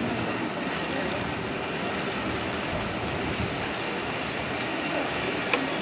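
A water-balanced cliff railway car rolling up its steep track, making a steady rumble and hiss of wheels and hauling cables.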